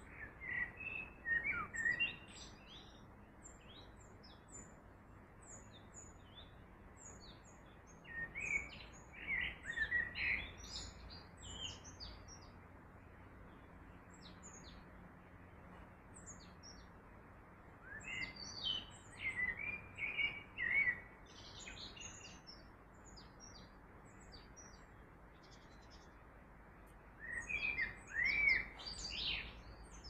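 Songbirds chirping in four bursts of quick, high chirps several seconds apart, over a steady hiss of running water.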